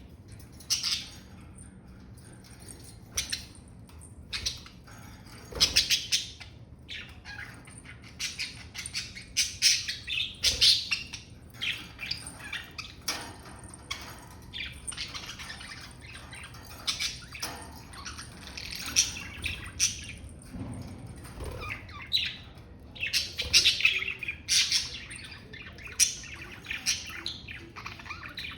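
Budgerigars (pet parakeets) chirping and chattering in quick, irregular strings of short high calls, with a few scratchier squawks.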